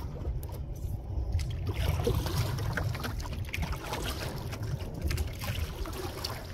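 Wind buffeting the microphone as a low, steady rumble, with water splashing and lapping against the canoe's hull in irregular crackles.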